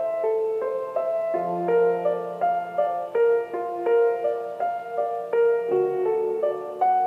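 Background music: a gentle piano piece playing a steady run of notes, with lower bass notes coming in about a second and a half in and again near the end.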